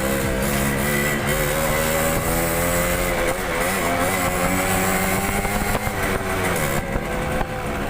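Motorcycle engine running while riding, a steady drone that wavers slightly in pitch a few times.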